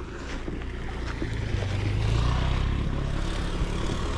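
Low engine rumble of a motor vehicle, building to a peak about halfway through and easing slightly toward the end.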